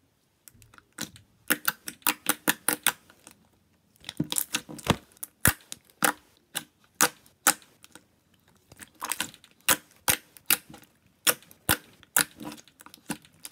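Glossy white slime clicking under fingers as it is pressed and kneaded: quick runs of sharp clicks, with a short pause about three seconds in.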